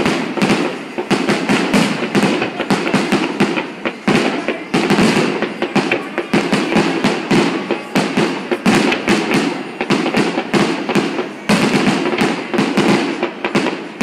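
Fireworks display: a dense, unbroken string of bangs and crackles as shells burst, several reports a second with no pause.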